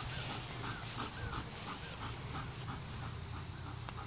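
German Shepherd panting, with a string of short, high whines.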